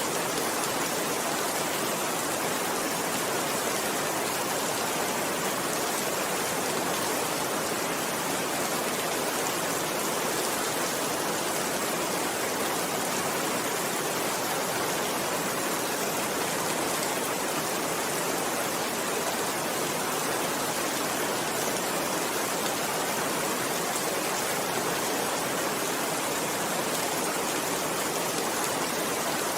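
Steady heavy rain falling: an even, unbroken hiss with no thunder claps.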